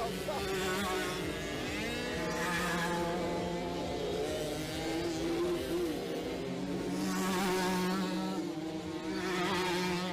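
Small two-stroke moped engines buzzing at high revs, several at once, each swelling and fading as it passes, with pitch glides as they rev.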